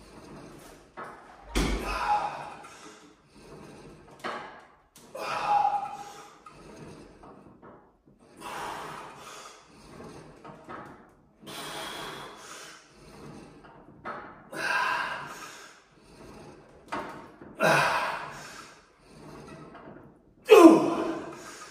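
A man lifting on a cable crossover machine, breathing out hard and grunting with each repetition, about every two to three seconds. The last grunt near the end is the loudest.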